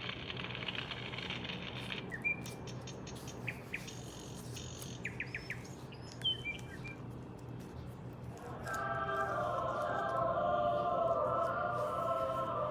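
A children's sound book's small speaker playing recorded sound effects: a hiss for about two seconds, then a few short bird chirps, and from about nine seconds in a tune with singing voices.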